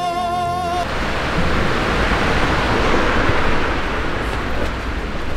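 A held sung note in the music breaks off about a second in. Street noise follows: a steady rushing hiss over a low rumble, swelling toward the middle and easing off, like traffic going by.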